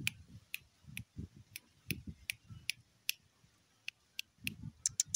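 Dog chewing with its muzzle to the ground: sharp crunching clicks about two to three a second, each with a dull low thud.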